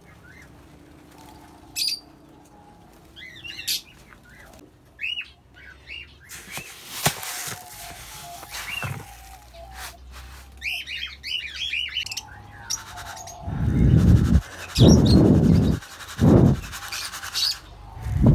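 Budgerigars chirping and chattering throughout. Near the end come three loud rustling bursts as the seed in a plastic tub is shaken.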